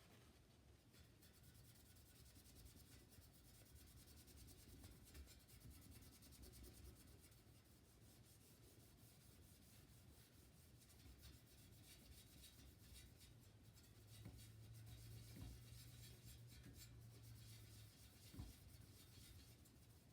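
Faint scratchy rubbing, with a low steady hum joining in for a few seconds past the middle and a single light knock near the end.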